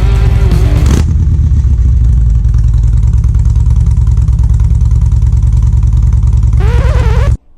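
Loud V-twin motorcycle engine running with a deep, rapid pulsing, and a wavering pitched sound over it near the end. It cuts off abruptly just before the end.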